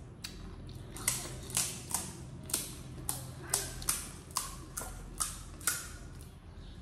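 Close-up chewing of crisp pani puri shells, a steady run of sharp crunches at about two a second.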